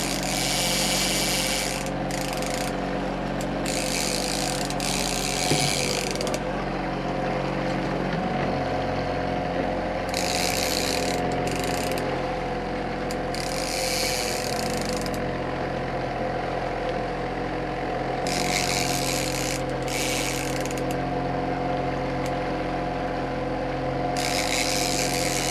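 Fishing reel ratcheting in repeated spells of one to three seconds while a hooked salmon is played, over a boat engine running steadily underneath.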